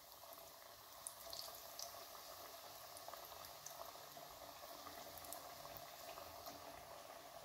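Faint sizzling and bubbling of breadcrumb-coated potato nuggets deep-frying in hot oil, with a few small crackles.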